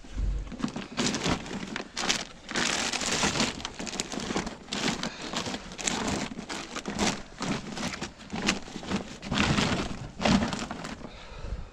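Irregular rustling and crinkling, as of plastic bags and clothes being rummaged through by hand.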